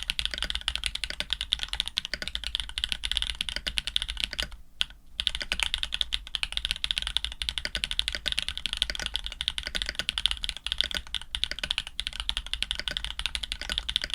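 Fast, continuous typing on a custom Orion 2.5 mechanical keyboard with Jade Black switches, a black FR4 plate and GMK keycaps: a dense stream of keystroke clacks, with a brief pause about five seconds in.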